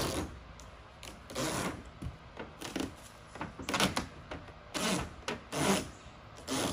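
Wide roll of greenhouse tape being pulled off the roll in short ripping bursts, about one a second, as it is laid down and pressed along a seam of foam board.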